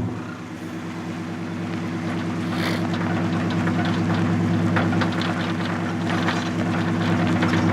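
Vehicle engine idling steadily, with faint scattered clicks and crackles over it.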